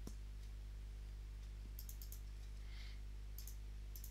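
Faint computer mouse clicks, a few coming in quick pairs, over a steady low hum.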